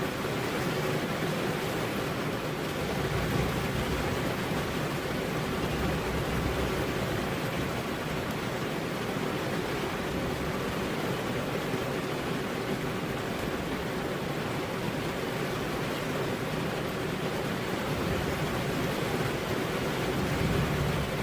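Steady rain falling, an even hiss without breaks, with a low rumble swelling slightly near the end.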